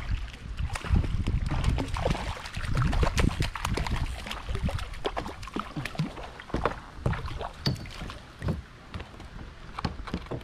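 Irregular knocks and splashes from a kayak while a hooked jack thrashes at the surface beside it, over a low wind rumble on the microphone.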